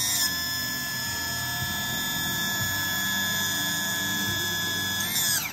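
Yamaha F300 power tilt-and-trim unit's electric motor and hydraulic pump running with a steady whine as the tilt ram extends to full tilt, showing the unit works; near the end the whine falls in pitch and stops.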